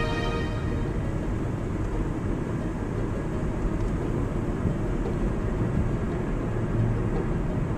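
A car driving along a paved road, heard from inside the cabin: a steady low rumble of engine and tyre noise.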